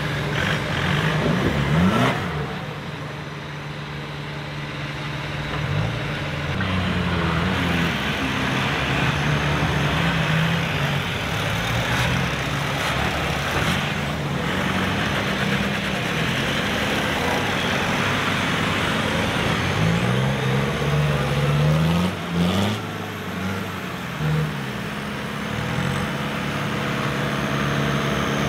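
Engines of off-road trial buggies and modified 4x4s revving under load as they claw up a steep dirt bank, with the pitch surging upward about two seconds in and again in several bursts near the end.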